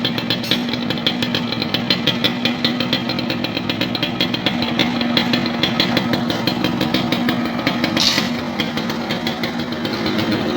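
Yamaha YB100's single-cylinder two-stroke engine idling steadily, with a quick, even exhaust putter. A short hiss comes about eight seconds in.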